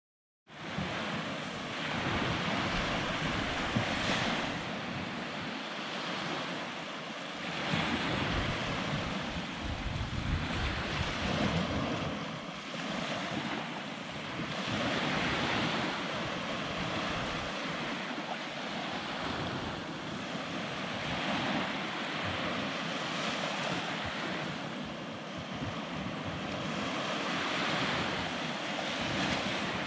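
Surf breaking and washing up a sandy beach, the wash swelling and fading every few seconds, with wind buffeting the microphone.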